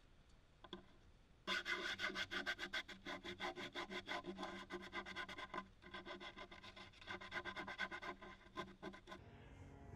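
Sandpaper rubbed by hand over cured fibreglass in quick back-and-forth strokes, a light sand of the glassed-in fuel-tank supports before flow coating. The rubbing starts about a second and a half in, breaks off briefly midway, and stops near the end.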